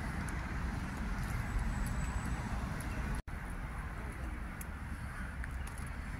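Outdoor background noise: a steady low rumble with a hiss above it, cut off by a brief dropout to silence about three seconds in.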